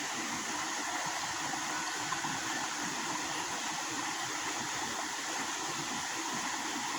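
Steady rushing of flowing water, an even hiss with no breaks or distinct events.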